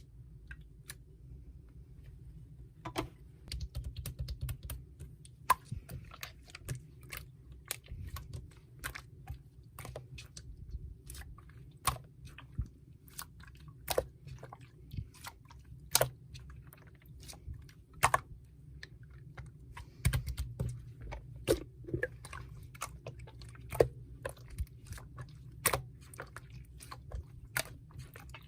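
Slime being squished and poked by hand, making irregular sticky clicks and pops, some louder ones about every two seconds, over a faint low hum.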